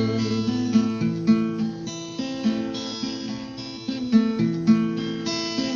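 Instrumental break of a song: acoustic guitar plucking and strumming chords, with a sustained bass line beneath.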